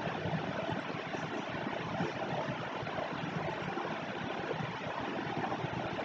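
Steady background hiss, an even noise with no distinct events.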